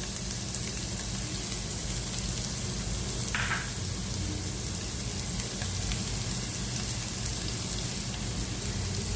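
Chopped onion and carrot sizzling in hot oil in a pan: a steady frying hiss, with a brief sharper noise about three seconds in.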